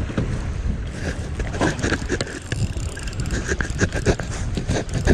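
Wind on the microphone and water slapping against a small aluminium boat's hull, with scattered knocks and clicks throughout.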